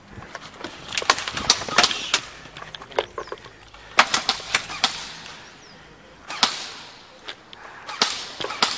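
Airsoft guns firing in rapid bursts of sharp cracks. The bursts come in clusters: about a second in, around four seconds in, once more at about six and a half seconds, and near the end.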